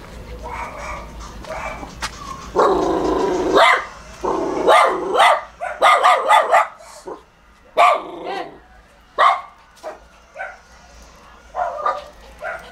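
A dog barking repeatedly: a quick run of sharp barks, then single barks spaced about a second or more apart.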